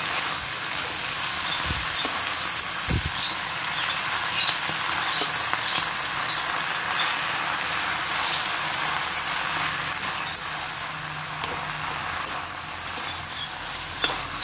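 Saag leaves, tomatoes and green chillies sizzling in hot oil in a kadhai as a flat metal spatula stirs them. There is a steady frying hiss, with short scrapes of the spatula against the pan every second or so.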